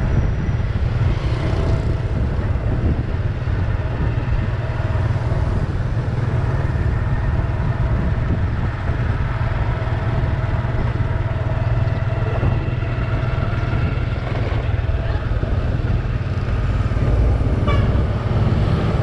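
Steady wind rumble on the microphone mixed with road and engine noise from riding along a paved road. A few faint ticks sound near the end.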